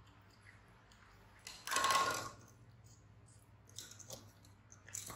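Soft clicking and sucking of a puppy and a baby monkey drinking from milk bottles, broken by one louder noisy sound of under a second about two seconds in and a few sharper clicks near the end.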